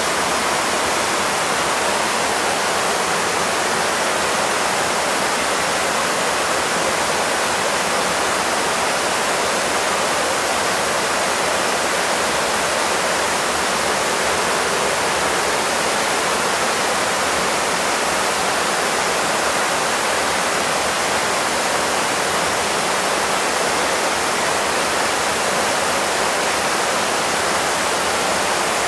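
Shallow, fast river rushing over rocks in rapids: a steady, even wash of water noise.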